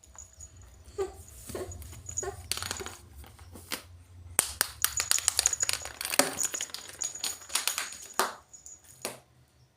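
A pet cat at play: a run of quick clicks, taps and scrabbling that comes thick and fast from about four seconds in until near the end, over a low rumble.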